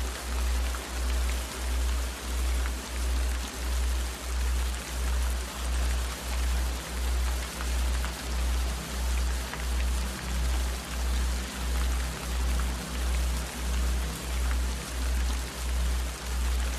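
Meditation soundtrack of steady rain with a deep low hum that swells and fades about three times every two seconds, under faint soft sustained tones.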